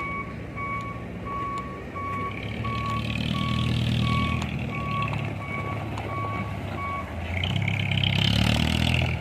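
Heavy vehicle's reversing alarm giving a steady repeating beep, which stops about seven seconds in, over a working engine that revs up around three seconds in and again more strongly near the end.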